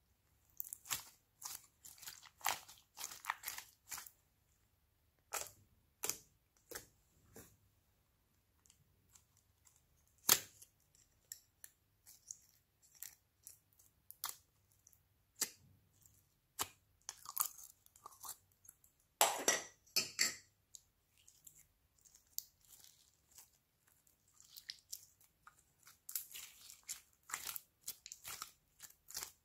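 Hands squishing, stretching and pressing slime: irregular sticky clicks, pops and crackles, loudest in a short cluster about twenty seconds in.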